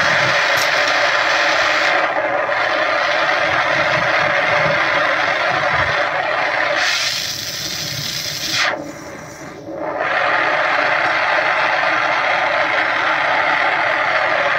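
Glassblower's bench torch flame hissing steadily and loudly. About seven seconds in the hiss drops and thins for some three seconds as the flame burns shorter, then comes back to full strength.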